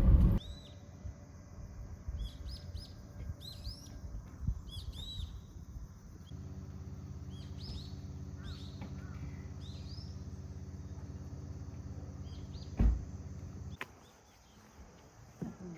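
Small birds chirping in short repeated calls for the first several seconds. From about halfway, a steady low hum from a vehicle engine idling, with a single thump about two seconds before the end. The hum cuts off just after the thump.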